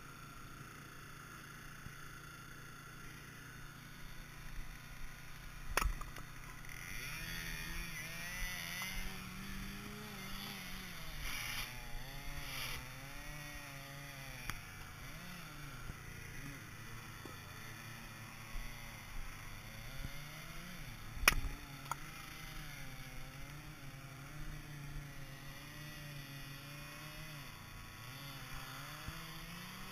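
Small gas engine of a hydraulic log splitter running, its pitch rising and falling as it works. Two sharp knocks stand out, about fifteen seconds apart.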